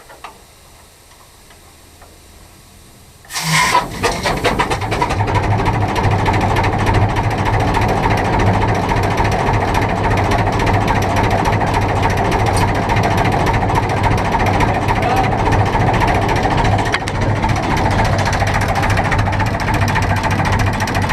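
Ruston Hornsby 4VPHN four-cylinder diesel being air-started. About three seconds in, a sudden blast of compressed air turns it over and it fires. It then runs steadily and loudly, with the fuel rack set to maximum for starting.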